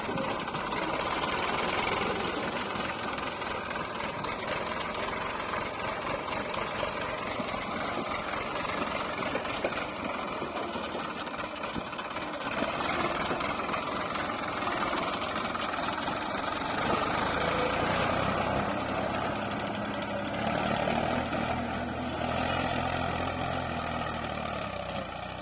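Diesel engine of the earth-moving machinery running steadily. About two-thirds of the way through it revs up under load, then eases back.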